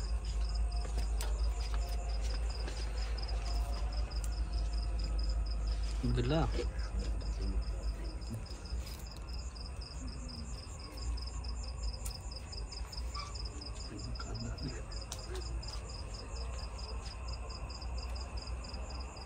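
Crickets chirping in a steady run of rapid, even pulses, over a low steady rumble. A short voice sound comes about six seconds in.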